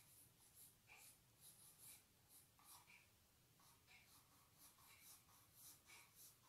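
Faint scratching of a pencil drawing short strokes over crayon-coloured paper, about two strokes a second.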